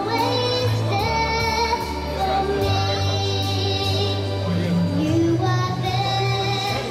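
A young girl singing into a handheld microphone, amplified over a recorded backing track with a steady bass line; she holds long notes that glide up and down between phrases.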